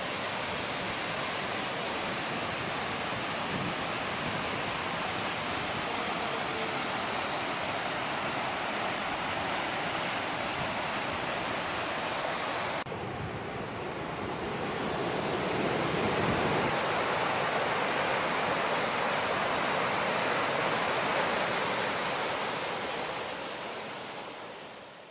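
Narada Falls: the steady rush of falling water. The sound changes abruptly about halfway through, grows louder soon after, and fades out near the end.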